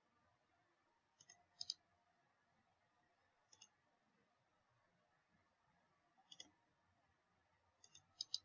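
Computer mouse clicking: a handful of short, sharp clicks, some in quick pairs, spaced a second or more apart over near silence.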